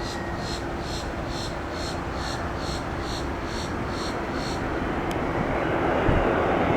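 Jet airliner engines running, a steady rushing rumble that grows louder over the last couple of seconds. A high chirp repeats about three times a second through the first two-thirds.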